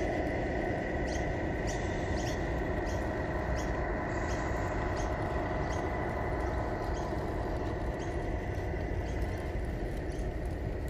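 Tamiya 1:14-scale RC semi-trucks driving past, giving a steady running hum with a thin steady whine above it. Short high chirps repeat about once or twice a second.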